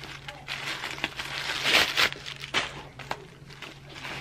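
Crinkling paper stuffing being worked loose and pulled out of a zipped belt bag, rustling in uneven bursts, loudest about two seconds in.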